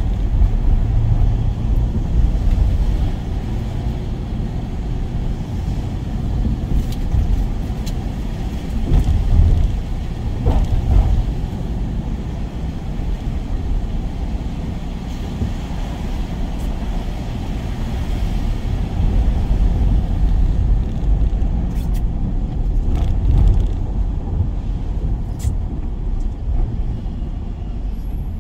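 Work van on the move: a steady, low engine and road rumble.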